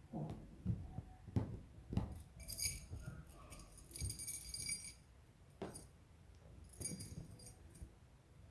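A cat playing with a plush toy fish: soft low thumps of paws and toy, and two spells of metallic jingling, a longer one a few seconds in and a short one near the end.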